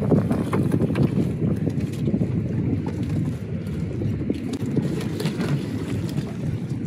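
Wind noise on the microphone aboard a small open boat: a steady low buffeting, with a few faint clicks scattered over it.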